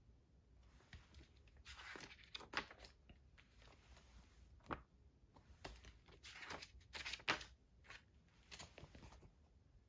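Paper pages of a softcover booklet being turned and handled: a series of faint paper rustles and soft flaps.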